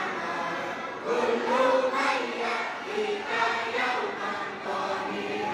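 A large crowd of boarding-school students singing a song together in unison, many voices holding a shared melody.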